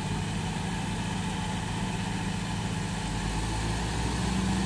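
Diesel engines of farm tractors, a stuck John Deere 5310 among them, running steadily, the note picking up slightly near the end.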